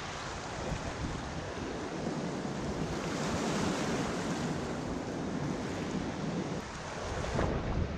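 Small river waves washing in and splashing over shoreline rocks, swelling slightly toward the middle, with wind buffeting the microphone.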